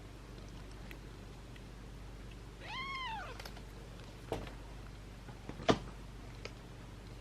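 A kitten gives one high-pitched meow, rising then falling in pitch, about three seconds in. It is followed by two sharp clicks, the second and louder one near the six-second mark.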